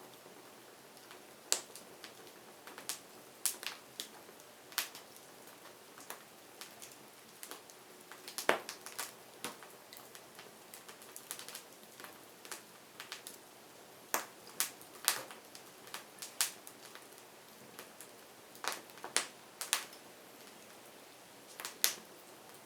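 Wood fire crackling: irregular sharp pops and snaps, a few clustered together, over a faint steady hiss.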